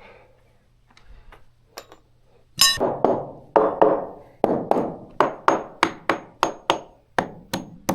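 Rapid hammering: a few light knocks, then from a couple of seconds in about fifteen hard hammer strikes at roughly three a second, each with a short ring.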